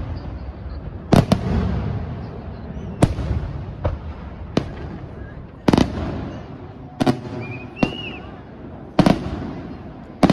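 Aerial firework shells bursting overhead: about eight sharp bangs at irregular intervals of roughly a second, some doubled, each followed by a rolling echo. A short rising whistle sounds about three-quarters of the way through.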